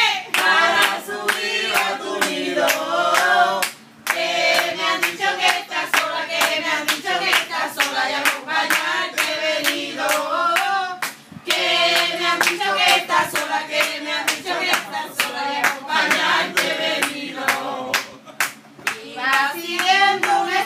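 A small group singing a song together, accompanied by steady rhythmic hand clapping on the beat, with two brief pauses between lines.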